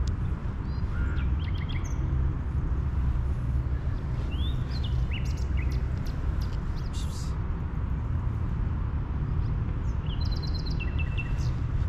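Small birds chirping now and then over a steady low outdoor rumble: a few short rising-and-falling calls about four to five seconds in and a quick run of chirps near the end.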